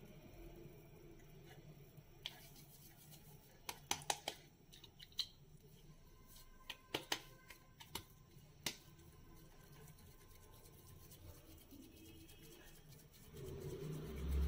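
Hands pressing and patting a ball of maize-flour dough, giving a scattered run of soft pats and sharp little clicks through the middle. A low hum comes up near the end.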